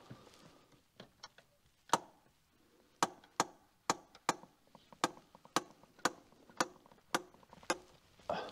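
BMW M3 Competition's handbrake lever ratchet clicking as the lever is pulled up slowly, eleven clicks at about two a second starting about two seconds in. That many clicks is the sign of a handbrake that has become too loose with years and miles.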